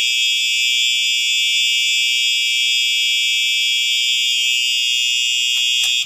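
Cerberus Pyrotronics MC-S17-F fire-alarm horn strobe on its horn tone: one loud, steady, high-pitched electronic horn blast, set off by a pulled manual pull station. A small click just before it cuts off at the end.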